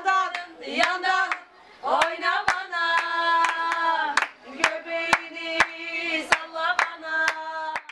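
A woman singing a melody with long held notes, accompanied by hand claps keeping a steady beat of about two a second.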